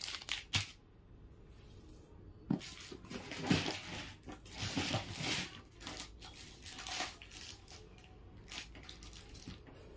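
Plastic packet crinkling and rustling in irregular bursts as a jewellery item is handled. After a quiet couple of seconds it comes in bunches and thins out near the end.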